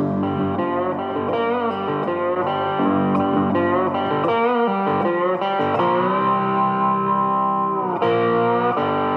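Background music led by an electric guitar, with one note sliding up and held for about two seconds past the middle.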